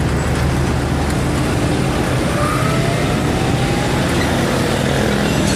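A motor running steadily with a low hum, and a faint rising whine about halfway through.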